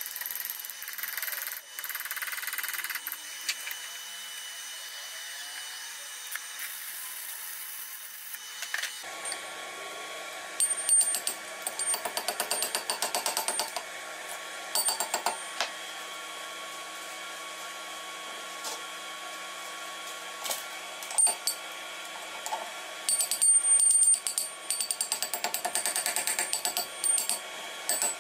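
Steel chipping hammer rapping on a fresh arc-weld bead to knock off the slag, in quick bursts of sharp metallic taps, starting about ten seconds in and recurring several times.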